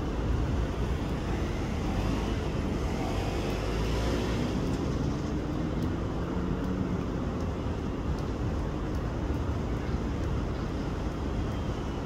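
Diesel railcar's engine running steadily as the train approaches slowly, heard from a distance over a steady background hum of urban traffic.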